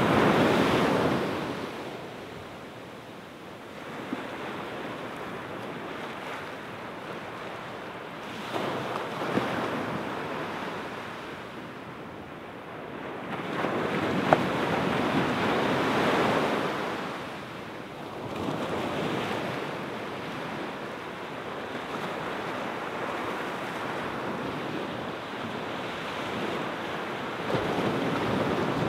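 Small ocean waves washing up on a sand beach, the surf hiss swelling and fading every few seconds, with some wind noise on the microphone.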